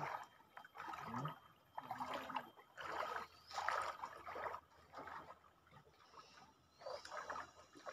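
Water splashing and sloshing in irregular bursts, about one a second, as a man wades into a shallow muddy stream and scoops at the water with his hands.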